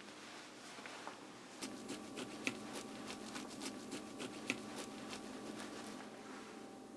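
A quick run of light, irregular clicks, about three or four a second, starting about a second and a half in and stopping about six seconds in, two of them sharper than the rest, over a faint steady hum.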